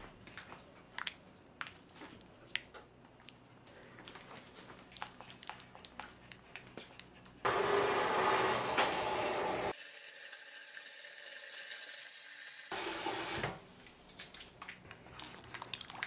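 Small clicks and knocks of clear vinyl tubing being handled, then a kitchen faucet running hard into an insulated cooler bag for about two seconds, filling the bag with tap water. The rush goes muffled for a few seconds and comes back briefly before the clicks resume.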